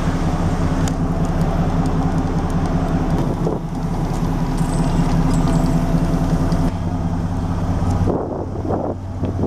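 An engine idling steadily, a constant low hum. Part of the hum drops away about eight seconds in.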